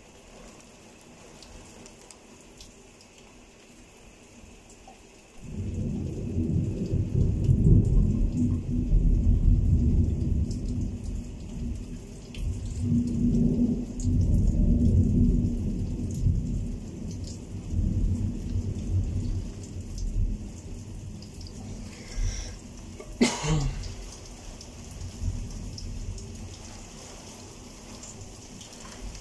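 Rain falling during a night thunderstorm. About five seconds in, a loud, deep rumble of thunder breaks out suddenly and rolls on for some fifteen seconds before slowly dying away. A short sharp crack comes near the end, over the hiss of the rain.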